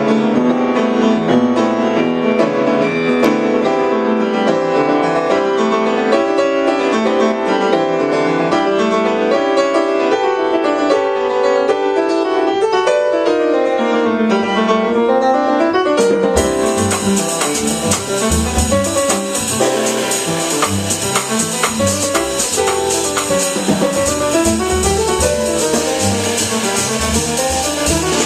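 Jazz piano trio playing live: the grand piano carries flowing runs nearly alone at first, then about halfway through the drum kit comes in with cymbals and a bass line joins underneath.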